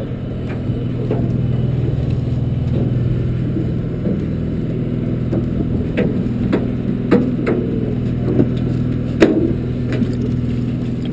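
Party boat's engine running with a steady low hum. A handful of sharp clicks and knocks come in the second half, the loudest near the end.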